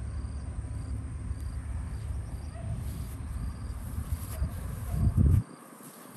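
Insects chirping in a steady repeating pattern over a low rumble. The rumble swells about five seconds in and then stops abruptly.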